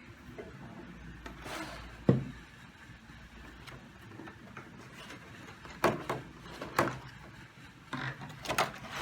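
Handling of the microphone and its box contents: one sharp knock about two seconds in, light rubbing, then a run of clicks and taps in the second half.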